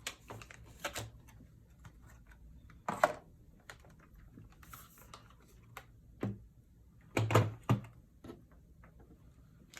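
Scattered light taps and clicks of a foil-wrapped Polaroid film pack being handled, with louder knocks and rustles about three seconds in and again around seven seconds in.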